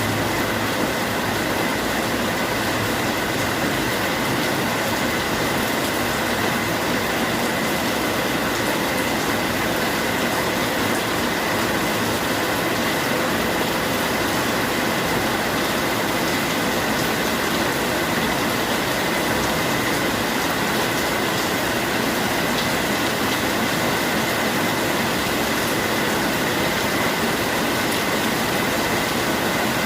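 Steady, even rainfall with no pauses or changes in strength.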